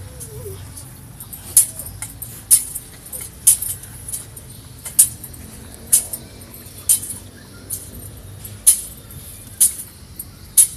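A metal censer (thurible) swung on its chains, jingling about once a second in a steady rhythm as the coffin is incensed, over a low steady rumble.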